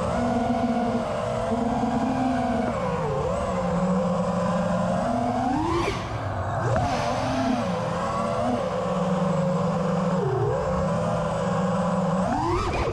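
5-inch FPV quadcopter's four brushless motors (RCinPower Smoox 2306.5, 2580 kv) spinning Gemfan tri-blade props, whining with a pitch that dips and climbs with throttle, with a sharp rising punch about six seconds in and another near the end.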